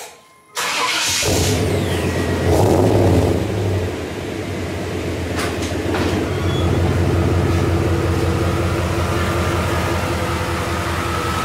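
GMC pickup truck's engine heard at the tailpipe: a brief crank on the starter, catching within a second, a short rev about two and a half seconds in, then a steady idle.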